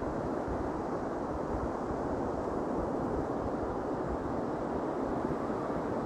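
Steady wind buffeting the microphone: a continuous rushing rumble with no breaks.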